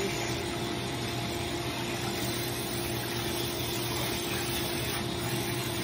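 Microbubble pet bath running: its pump gives a steady hum with one constant tone over the rush of water circulating in the tub.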